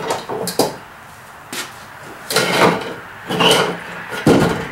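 A heavy blacksmith's vise, hung from a wooden board, being worked down into a plastic barrel: several separate knocks and scrapes of wood and metal against the barrel rim, the loudest a full clunk near the end.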